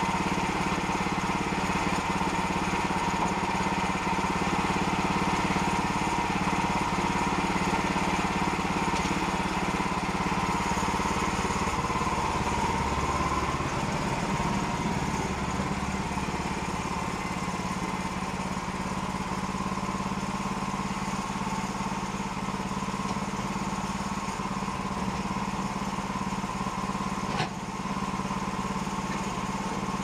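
The small gasoline engine of a Woodland Mills portable band sawmill, about 9.5 horsepower, running steadily and a little quieter in the second half. A single sharp click sounds near the end.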